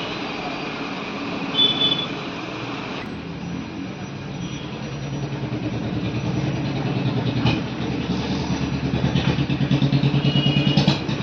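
Road traffic with a motorcycle engine running close by, its pulsing growing louder over the second half.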